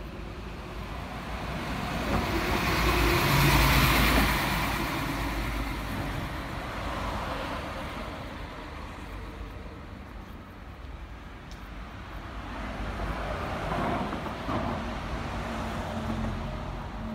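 A bus passing close by, its tyre and motor noise swelling to a peak about four seconds in and then fading. A second vehicle approaches and grows louder near the end.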